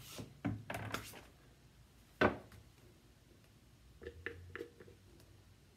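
Scattered knocks and light clatter of a cobbler handling heels and tools at his workbench, with one sharp knock about two seconds in and a few faint clicks near the end.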